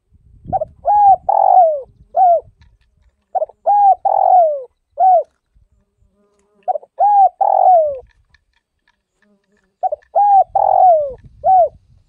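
Spotted dove singing its cooing song: four phrases about three seconds apart. Each phrase is two short coos, a longer falling coo, and usually a short closing note.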